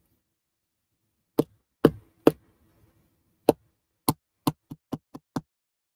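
Small plastic toys and containers being handled and set down: about ten sharp knocks and taps, spaced out at first, then several in quick succession near the end.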